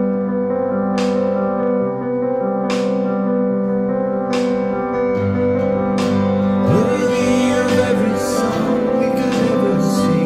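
Worship band playing the slow intro of a contemporary worship song: held keyboard chords with a bright accent about every two seconds. A voice starts singing about seven seconds in.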